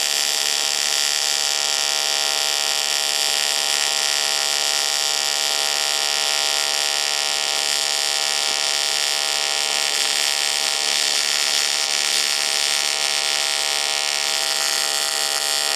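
AC TIG welding arc on aluminium from a Longevity Innovator 255i, run with pulse off, giving a steady, unbroken buzz of many evenly spaced tones over a high hiss as the bead is laid along a fillet joint with 5356 filler rod.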